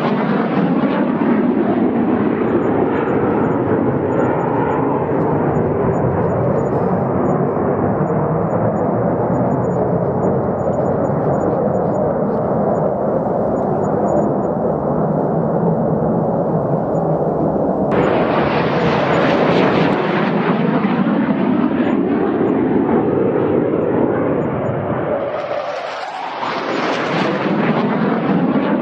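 Fighter jets flying past: loud, continuous jet engine noise. About two-thirds of the way in it switches abruptly to a brighter, hissier sound. A few seconds before the end it dips briefly, then another pass builds up.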